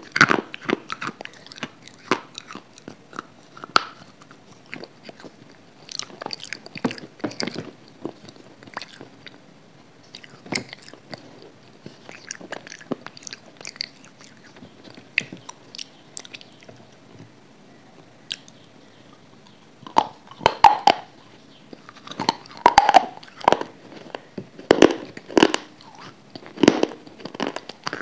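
Close-miked biting and chewing of hard, brittle gray slabs: sharp crunches and crumbling. Sparse and quieter through the middle, with a run of loud crunches starting about two-thirds of the way in.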